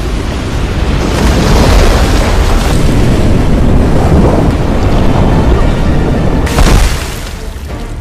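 Film soundtrack: a loud, deep rumble of a huge surging wave of water crashing, with dramatic music underneath. It swells again about six and a half seconds in, then fades near the end.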